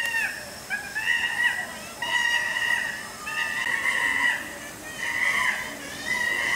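Chimpanzee screaming: a run of about six high-pitched calls, roughly one a second, each held for under a second.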